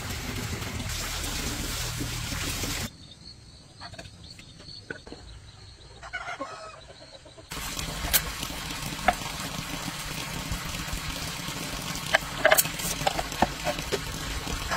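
Chickens clucking now and then over a steady background hiss, with a few sharp taps and knocks from clay tiles being measured and set down. The loudest knocks come near the end.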